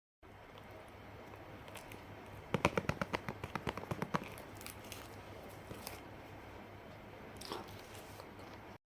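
Handling noise while unboxing a phone: a quick run of about a dozen crackling clicks starting about two and a half seconds in and lasting under two seconds, then a few scattered small clicks and one more crackle near the end.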